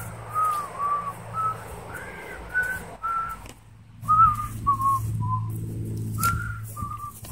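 A man whistling a simple tune: a string of short notes, with a brief pause about halfway through. A low steady hum runs underneath.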